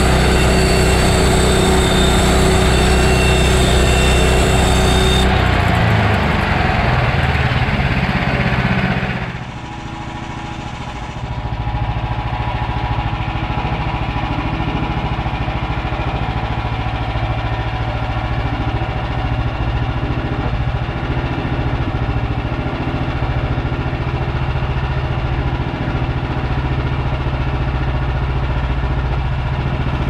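Engine of a Woodland Mills HM130MAX portable bandsaw mill running. It is loud and harsh for the first several seconds, dips briefly about ten seconds in, then settles into a steady run.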